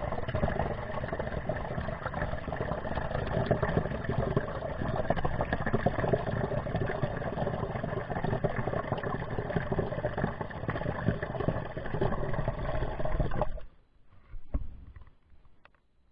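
Rushing, gurgling water with a low rumble, the sound of a ship flooding as it sinks. It cuts off abruptly about three-quarters of the way through, and a few faint clicks follow.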